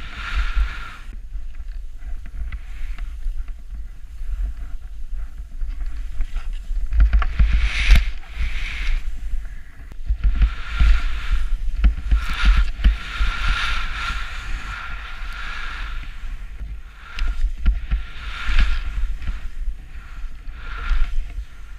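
Skis hissing through deep powder snow in repeated surges, one with each turn, over a constant low wind rumble on a helmet-mounted camera's microphone.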